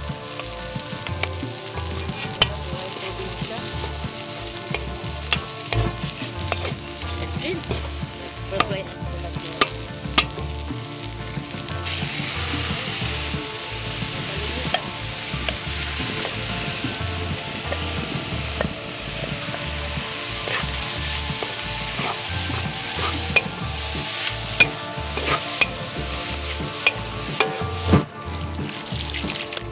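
Sautéing in oil in a large steel wok: a steady sizzle with the metal spatula clicking and scraping against the pan. About twelve seconds in, the sizzle turns louder and brighter as chopped goat innards fry. Near the end, water is poured into the hot wok.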